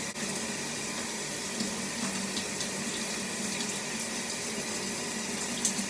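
Water running steadily from a tap, with a few faint light knocks.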